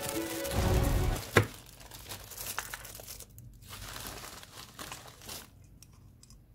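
A padded plastic mailer bag being torn open and crumpled by hand: crinkling and tearing, with a sharp snap about a second and a half in. Background music plays under the first second.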